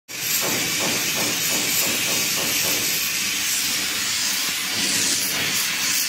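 Oxy-LPG brazing torch flame hissing steadily as it heats a copper pipe.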